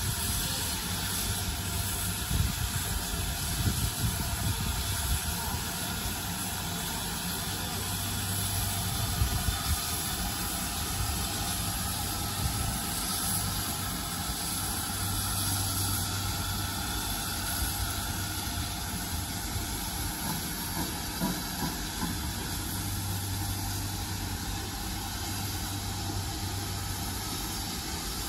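GWR 5600-class 0-6-2 tank engine 5643 hissing steam and rumbling as it moves slowly away from its carriages, with a few sharper knocks in the first part.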